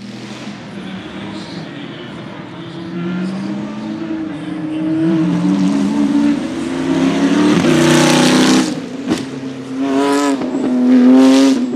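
Arrinera Hussarya GT3's 6.2-litre LS3 V8 race engine at high revs as the car drives past, loudest about two-thirds of the way in. Near the end it revs up in two rising sweeps as it accelerates away.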